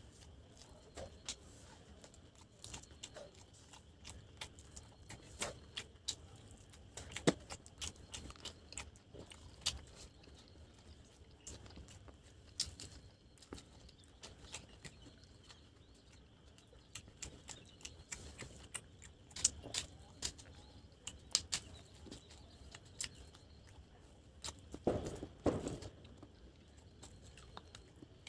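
Close-miked eating sounds: wet chewing and irregular mouth clicks and smacks while chicken curry and rice are eaten by hand, with one louder, longer mouth sound about 25 seconds in.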